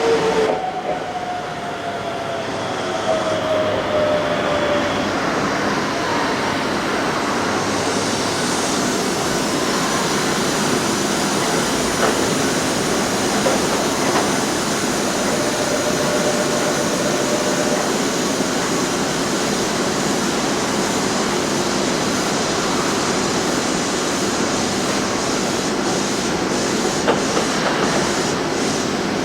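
Keisei 3700-series electric commuter train running at the platform, a steady rumble of wheels and running gear. In the first few seconds a falling electric motor tone is heard as it slows.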